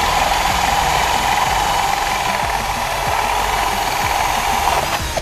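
Cordless drill with a small hole saw boring through a plastic side-mirror housing, the motor running at a steady speed, then winding down and stopping just before the end.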